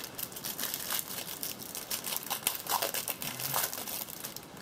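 Packaging crinkling and rustling as it is handled, a dense run of irregular crackles that stops shortly before the end.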